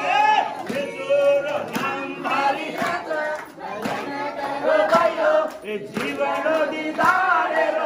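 A congregation of men and women singing a devotional song together, with hand claps keeping time about once a second.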